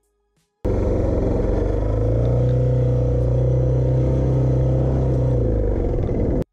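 Suzuki DR650's single-cylinder four-stroke engine running at a steady pitch while the bike is ridden off-road. It starts abruptly after a short silence and cuts off just as suddenly near the end.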